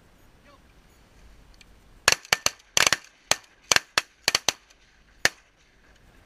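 A volley of shotgun fire from several hunters shooting at once: about a dozen sharp shots, some overlapping, packed into about three seconds starting about two seconds in, ending with one last lone shot.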